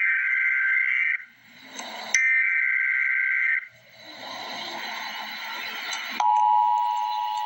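Emergency Alert System SAME header data bursts, encoding a severe thunderstorm warning: two bursts each just over a second long, about a second apart. A stretch of hiss follows, then about six seconds in the steady two-tone EAS attention signal (853 and 960 Hz) starts.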